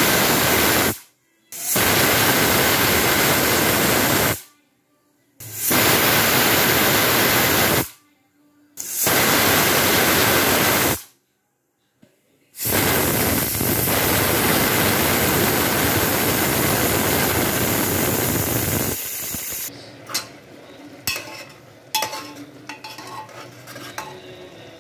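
Steam hissing out of a pressure cooker's weight valve as the weight is lifted with a spoon to let the pressure out: four hissing bursts of a few seconds each, then a longer one that fades. Near the end, light clinks of a steel spoon against the cooker as the cooked noodles are stirred.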